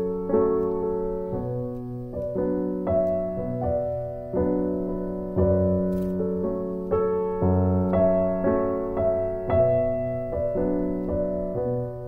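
Soft background piano music, with gently struck chords that fade.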